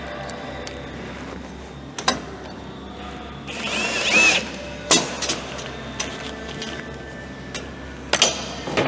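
Sharp metal knocks from sheet-metal vent pipe being handled and fitted, with a brief burst from a small power tool, likely a screw gun, about three and a half seconds in.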